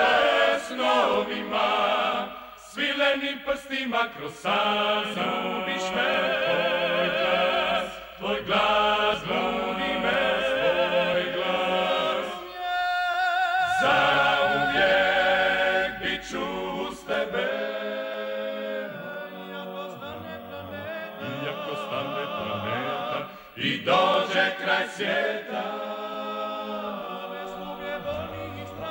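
Male klapa group singing unaccompanied in close harmony, with vibrato and short breaks between phrases. About halfway through the low voices drop out briefly while a high lead voice carries the line alone.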